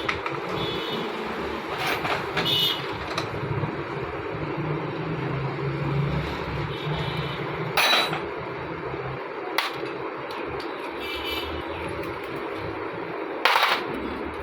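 Steady street traffic noise, with a few sharp metallic knocks and clinks from hand tools working on a motorcycle engine, the loudest about eight seconds in and near the end.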